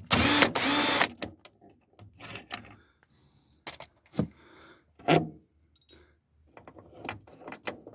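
A cordless drill with an extension bit runs for about a second at the start, backing out a screw on the furnace's pressure switch. After it come scattered clicks and clatter of screws and metal furnace parts being handled.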